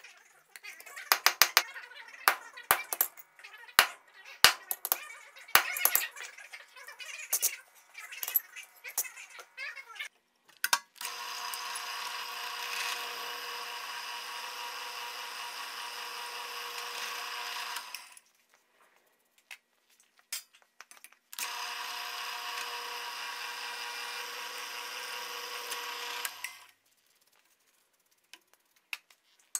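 Hand hammer blows on a hot punch driving through red-hot steel on an anvil: a quick, irregular run of sharp strikes for about ten seconds. Then a drill press runs steadily twice, about seven and then five seconds, boring a hole through the forged steel held in a vise.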